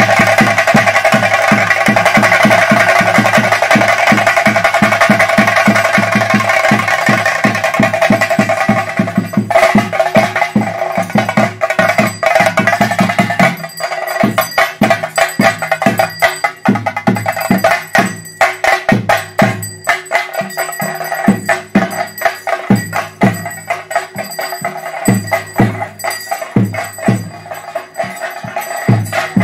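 Chenda drums beaten with sticks in a fast, dense roll that thins out about ten seconds in into a slower beat of spaced, separate strokes.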